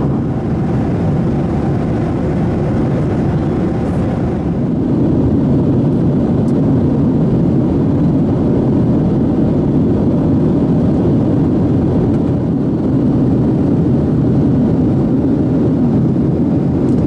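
Steady low noise of a Boeing 737-800's CFM56-7B turbofan engines heard inside the passenger cabin, growing slightly louder about four and a half seconds in.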